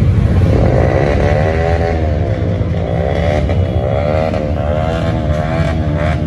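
Many motorcycle engines running together in a low rumble, with an engine revved over and over so its pitch rises and falls repeatedly.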